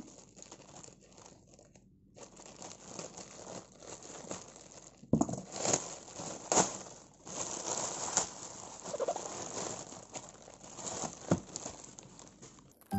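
Clear plastic packaging crinkling and rustling as it is pulled apart by hand and cut with scissors. It is faint at first, then louder from about five seconds in, with a few sharp crackles.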